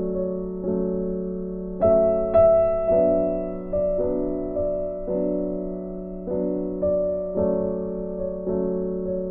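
Background music: a gentle piano melody of struck notes that each fade away, with a steady low tone underneath.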